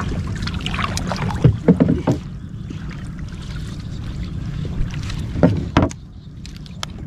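Small boat on the water: irregular splashing and knocks over a steady low rumble that eases off near the end.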